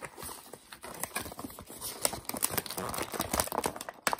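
Cardboard and plastic toy packaging being handled and pulled apart: irregular crinkling and rustling with many small taps and clicks.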